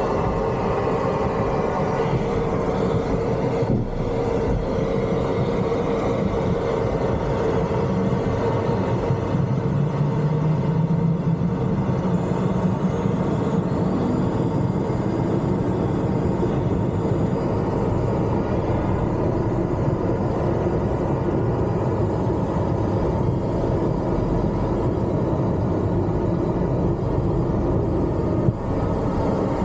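An airplane taking off: a loud, steady rumble of the engines and the takeoff roll, with a tone that rises about ten seconds in.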